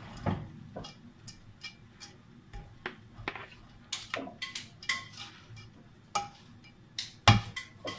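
A slotted spoon scooping drained parboiled rice out of a plastic colander into a metal cooking pot, with irregular light taps and clinks against the pot and colander, some ringing briefly. A louder knock comes about seven seconds in.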